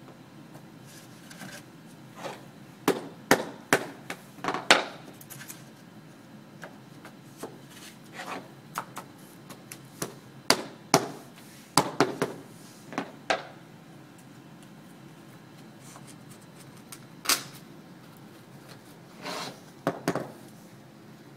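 A hammer tapping on laminate flooring planks to seat their click-lock joints: sharp wooden knocks in irregular clusters, several in quick succession, with pauses between.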